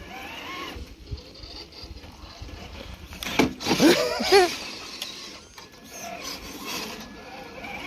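A person's short wordless vocal sound, with a bending pitch, about three and a half seconds in, over steady background noise.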